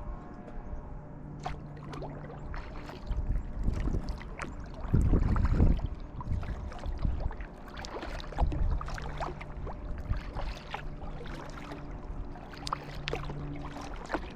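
Kayak paddling: the paddle blades dip and splash, and water drips from them, in a steady run of small splashes. About five seconds in there is a louder low rumble.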